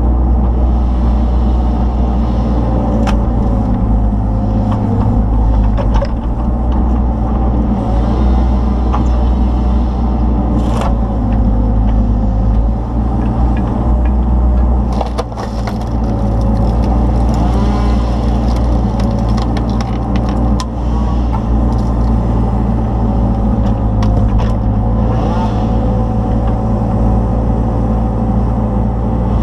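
Kubota KX161-3 mini excavator's diesel engine running steadily under load, with a whine that drifts in pitch, while its wood-splitter attachment crushes and splits log rounds; several sharp cracks of splitting wood stand out, about three, six, eleven and fifteen seconds in.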